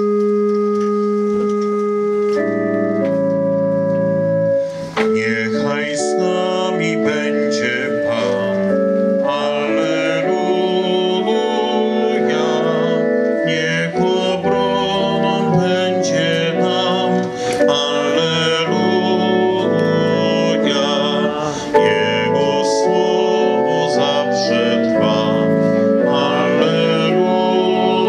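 Organ music: held chords at first, then a fuller piece of many changing notes from about five seconds in, with singing over it.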